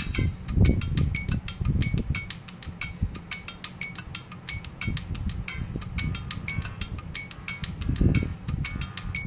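A Sony Ericsson T700 ringtone playing through the phone's small speaker: a rhythmic, mechanical-sounding pattern of clicks and ticks with an accent about every 0.4 s and low thuds underneath.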